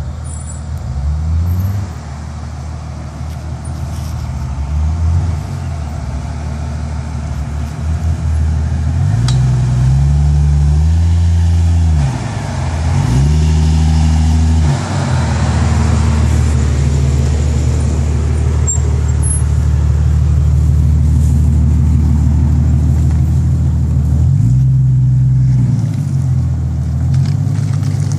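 Lifted Jeep Cherokee XJ's 4.0-litre inline-six with a Magnaflow exhaust running as the Jeep drives through muddy ruts, revving up and down several times about a third of the way in and again near the end, and holding steady and loud as it passes close by in between.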